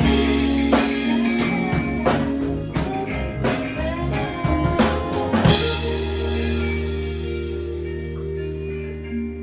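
Band music with drums and guitar; about five and a half seconds in the drums stop and a held final chord rings on, slowly fading.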